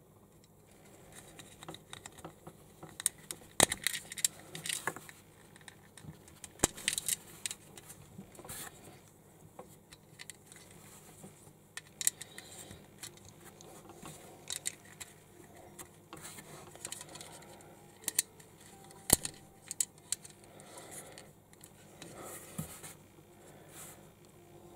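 Small plastic building bricks clicking and clattering as they are handled and pressed onto a model, with irregular sharp snaps, a few much louder about 4, 7 and 19 seconds in.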